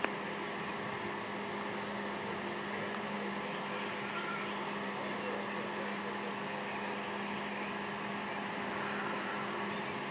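Steady mechanical hum with an even hiss and a constant low tone, unchanging throughout.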